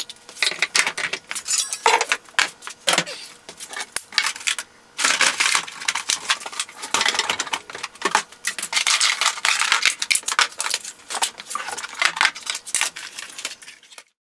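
Small metal hardware and plastic containers clattering and rattling as they are handled and put back in a drawer, a dense run of irregular clicks and knocks with a brief lull midway. It cuts off suddenly near the end.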